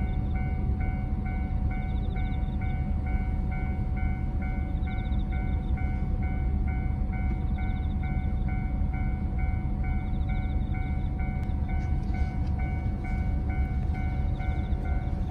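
Railway level-crossing alarm ringing its evenly repeated two-tone dings, about three a second, over a continuous low rumble, loudest of all, of a train going by.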